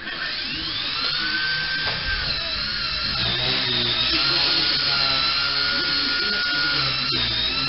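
Walkera Super CP micro RC helicopter's small electric motor and rotor spooling up with a quickly rising whine, then running at a steady high whine that wavers slightly in pitch. A single click comes near the end.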